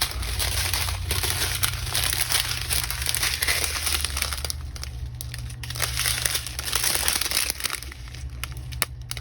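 Small plastic bags of diamond-painting drills crinkling as they are handled and sorted, easing off briefly about halfway through and again near the end.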